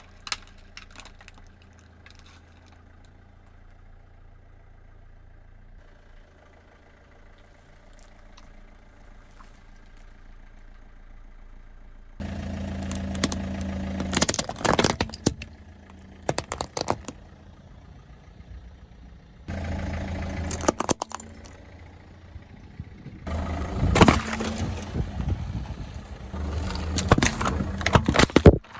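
Car engine idling steadily. Then, three times, a loud stretch of crackling and sharp cracks as the car's tyres roll over and crush objects.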